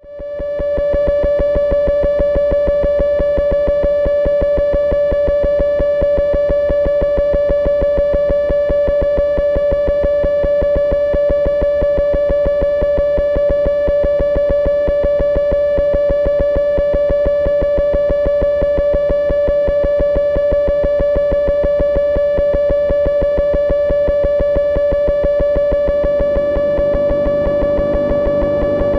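Dark Matter drone/noise synth by Lefty's Sound Lab holding a steady drone on one pitch with bright overtones over a fast, buzzing pulse. It fades in over the first second, and a rougher, noisier layer builds up near the end.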